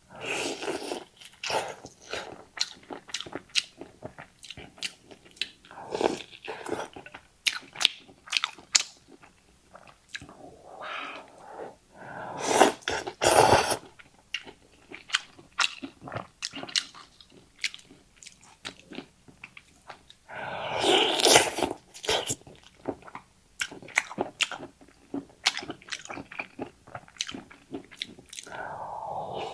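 Close-miked eating of rice noodles: steady chewing with many small wet clicks and smacks, broken by about three long drawn-in slurps of noodles, one right at the start, one near the middle and one about two-thirds of the way through.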